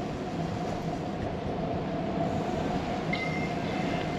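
Steady rolling rumble and hiss of a bicycle ride on city streets, with a constant mid-pitched hum running through it and a short high tone about three seconds in.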